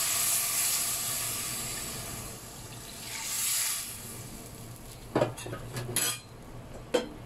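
Tamarind water mixed with masala poured into a hot pan of prawns and vegetables, sizzling, then fading, with a brief second swell. Near the end, a few sharp metal clinks of a vessel or spoon against the pan.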